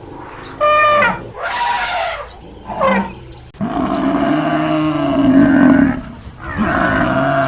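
Animal calls: three short high-pitched calls, then after an abrupt change about three and a half seconds in, long, low, drawn-out calls.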